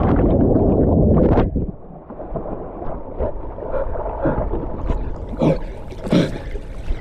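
Camera plunged underwater: a loud muffled rush of water and bubbles for about a second and a half. It then breaks the surface into water sloshing and lapping around the camera, with a few sharp splashes near the end.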